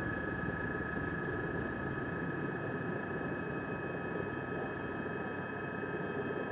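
Steady drone of a helicopter, with an even rumble and a constant high-pitched whine.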